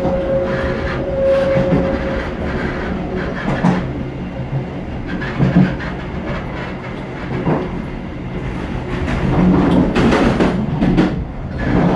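Train running along the track, a steady rumble with wheels clattering over rail joints every couple of seconds. Near the end a louder burst of clatter as it rolls over the station points.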